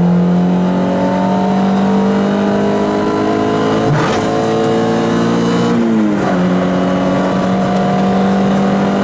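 Peugeot 106 rally car's engine heard from inside the cabin, pulling in gear with its pitch climbing steadily, a brief knock about four seconds in, then the revs dropping a little about six seconds in and holding steady.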